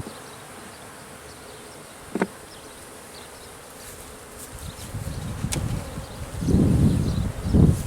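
Honeybees buzzing around an open hive, the buzzing swelling louder in the last few seconds as bees come close. A single sharp click about two seconds in.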